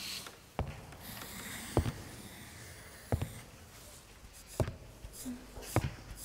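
Slow footsteps on a wooden floor: five hard heel strikes, a little over a second apart.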